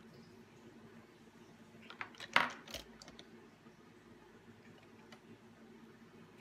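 Small plastic liquid-lipstick tube and its packaging being handled and set down: a short run of clicks with one sharp clack about two and a half seconds in, then a few faint ticks, over a low room hum.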